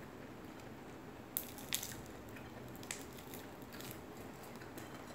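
Eating by hand from a plate of fried fish: a few sharp clicks and crackles of chewing and of fingers picking at the fish, the loudest two about one and a half seconds in, over a steady low background.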